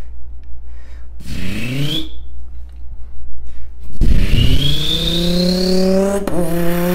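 Human mouth imitation of a twin-turbo Audi R8: a short rising rev with a turbo whistle on top about a second in, then from about four seconds a longer, louder rev climbing in pitch under a rising turbo-spool whistle, held and briefly broken near the end.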